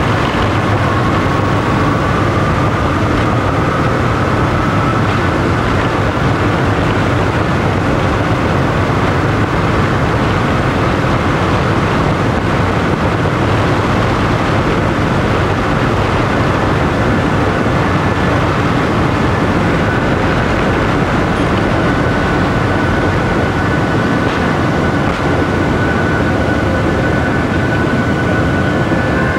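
Jet airliner's turbofan engines at takeoff power, heard inside the cabin over the wing: a loud, steady rush with a low rumble through the takeoff roll. A faint fan whine rises in pitch over the first few seconds, and a steady high whine is there in the second half, as the aircraft nears lift-off.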